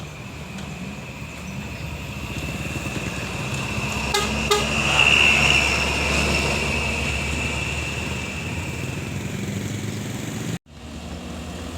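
A large road vehicle, most likely an intercity bus, passes close by. Its engine rumble and tyre noise swell to a peak about halfway through and then ease off. A steady high-pitched tone runs through most of it, and two sharp clicks come about four seconds in. The sound breaks off abruptly near the end.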